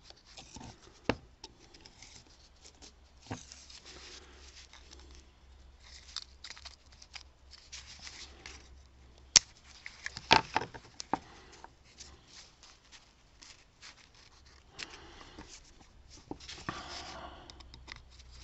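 Small hand tools and fingers clicking and scraping on an old revolver's frame as the grip panel is pried loose. Scattered light clicks and short scrapes, with two sharper clicks about nine and ten seconds in.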